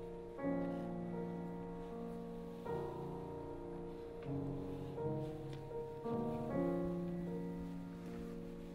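Solo piano playing slow, quiet music: chords struck every second or two and left to ring.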